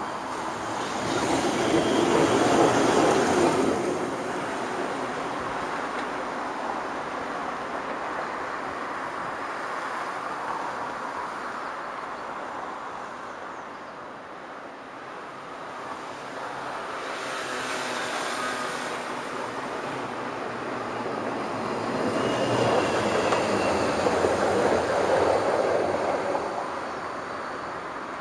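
Street traffic with vehicles passing by. Two loud swells come and fade, one near the start and one near the end, with a quieter stretch between.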